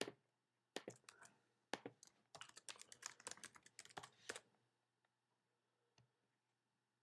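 Faint computer keyboard keystrokes: a few separate clicks, then a quick run of typing lasting about two seconds, then one last faint click.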